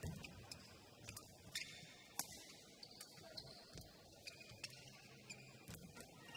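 Faint badminton rally: a shuttlecock struck back and forth with rackets, giving sharp irregular pops about a second apart, with brief squeaks of court shoes on the floor.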